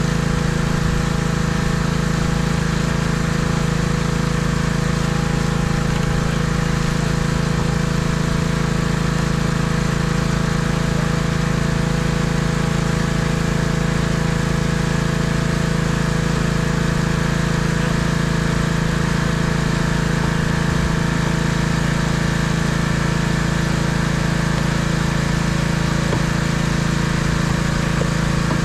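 Pressure washer's engine running steadily at a constant speed, with the hiss of the wand spraying water onto a semi-truck cab.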